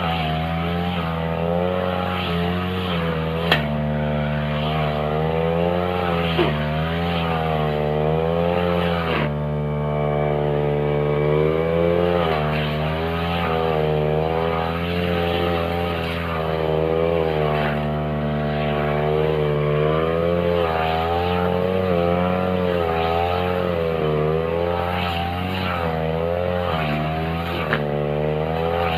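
Backpack two-stroke brush cutter running at high speed with its blade cutting thick grass; the engine pitch dips and recovers over and over as the blade takes and sheds load with each swing. Twice in the first seven seconds there is a sharp tick.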